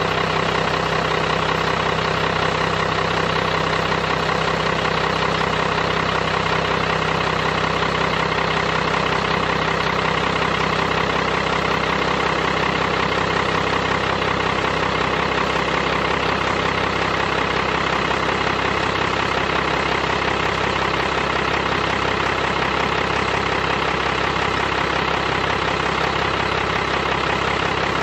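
12-valve Cummins inline-six diesel engine idling steadily.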